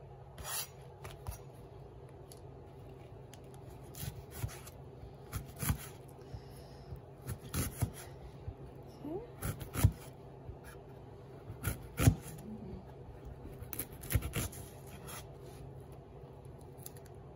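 Chef's knife slicing an onion on a cutting board: irregular crisp cuts and knocks of the blade against the board, with two louder knocks in the second half.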